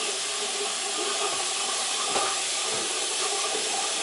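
Steady hiss of water running into a kitchen sink.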